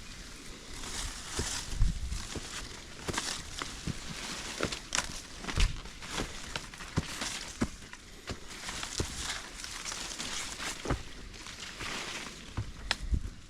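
Footsteps scuffing and crunching on a steep dirt trail, with leaves and undergrowth rustling: irregular thuds and clicks, a few a second.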